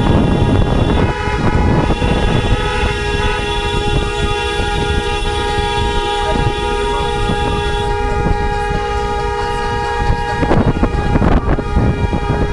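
Several car horns held down together in one long, steady chorus of honking, over loud wind buffeting and road noise from the moving car.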